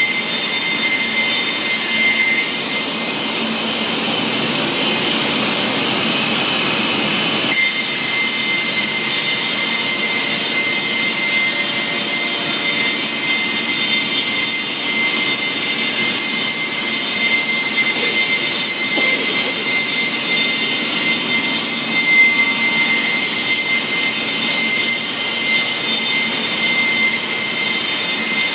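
Weeke BP CNC machining centre running: a high-pitched spindle whine of several steady tones over a continuous rushing noise. About two and a half seconds in, the whine drops back and a rougher noise takes over, then the original whine returns suddenly about seven and a half seconds in.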